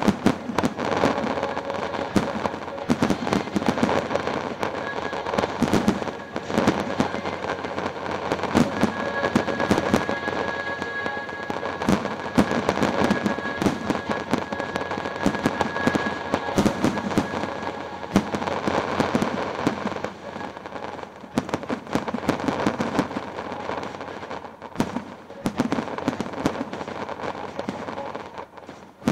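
Large fireworks display: a continuous barrage of aerial shell bursts, rapid sharp cracks and bangs over a steady rumbling wash of explosions.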